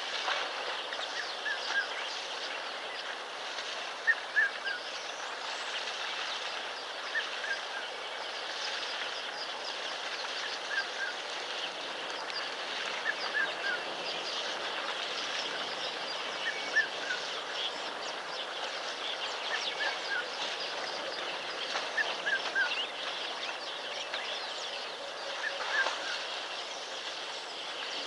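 A bird repeating short, high, falling two-note chirps every few seconds over a steady outdoor hiss.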